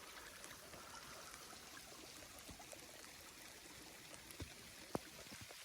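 Faint steady hiss of mixed sleet and rain falling on a canvas hot tent, with a few sharp ticks about four and five seconds in.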